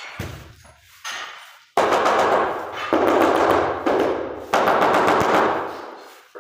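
Stiff broom sweeping grit and dried tile adhesive off a concrete subfloor, close by: three strokes, about a second each, starting about two seconds in, each a rapid rattling scrape that starts sharply and fades.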